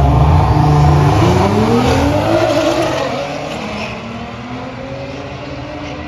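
Nissan GT-R and BMW M3 launching side by side in a drag race: a loud low rumble at the line, then the engines rev up in rising pitch through the gears. The sound fades from about three seconds in as the cars pull away down the strip.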